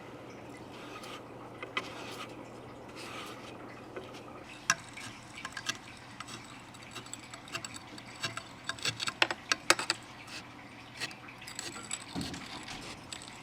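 Irregular light clicks and clinks of small hard objects knocking together, thickest about eight to ten seconds in.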